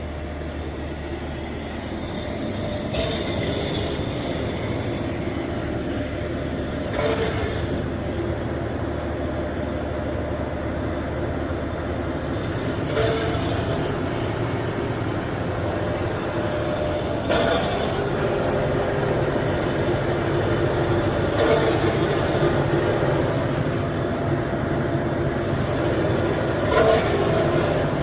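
Generator set engine running steadily, with a sharp stroke breaking into its sound every four to five seconds. The mechanic calls the sound abnormal, a 'missing' type, suggesting an engine misfire.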